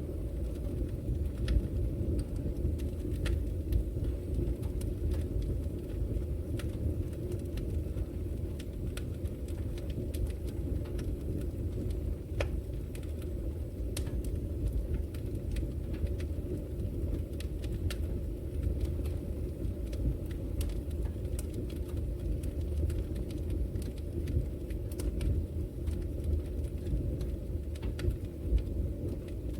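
Wood fire burning in a fireplace: a steady low rumble with irregular sharp crackles and pops from the burning logs.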